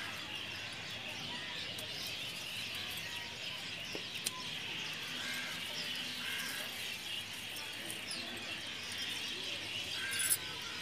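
Birds chirping in the background while mint stems are cut with scissors among rustling leaves. There is a sharp click about four seconds in and a louder short rustle near the end.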